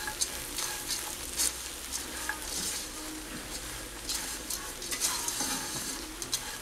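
A spatula stirs and scrapes a dry farofa of flaked corn flour, walnuts and raisins around a pot as it toasts over low heat. Irregular scrapes and rustles of the flakes sound over a steady hiss.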